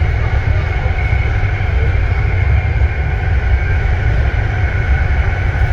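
BART metro train running on the rails: a loud, steady low rumble with a constant high-pitched whine over it.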